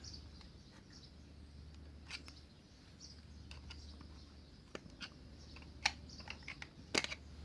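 Scattered light clicks and taps of a tool and small metal parts being handled while the cover is taken off a motorcycle's rear brake caliper, with a few sharper clicks near the end.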